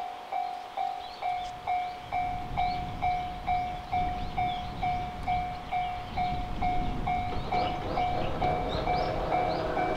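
Railway level-crossing warning bell ringing about twice a second, an even repeated ding. The low rumble of an approaching train builds underneath from about two seconds in, and more steady tones join near the end.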